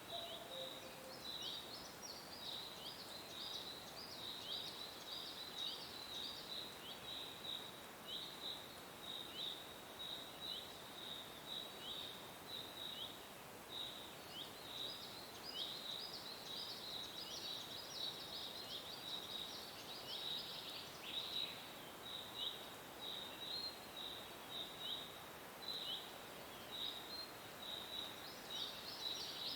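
Nature ambience of short, high chirps repeating about once or twice a second, thickening in stretches where several callers overlap, over a faint steady hiss.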